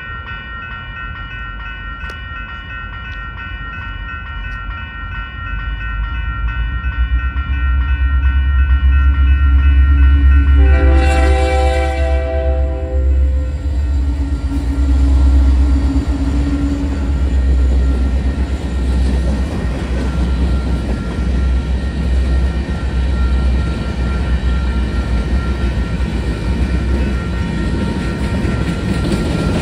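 Railroad crossing bells ringing steadily as a Union Pacific EMD GP60 diesel locomotive approaches with a rising rumble. About eleven seconds in, the locomotive sounds one horn blast of roughly two seconds as it reaches the crossing. The train's tank cars and covered hoppers then rumble and clatter over the crossing, with the bells still ringing underneath.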